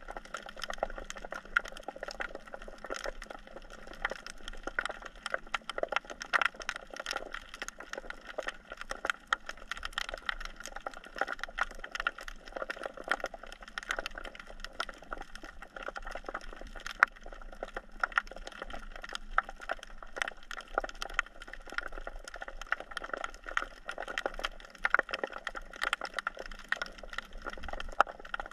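Dense, irregular crackling of countless sharp clicks, heard underwater over a rocky reef: the typical chorus of snapping shrimp.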